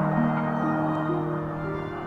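Calm ambient background music of slow, sustained notes moving between pitches.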